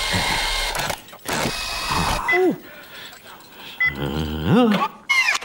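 Cartoon mechanical claw arm whirring as it swings a bag of potatoes up on its hook, over the first two seconds. Short wordless vocal sounds follow, about two seconds in and again near the end.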